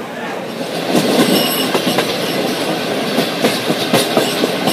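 Passenger train running on the track, its wheels clattering over rail joints with irregular clicks and knocks, heard from an open coach doorway; the clatter gets louder about a second in.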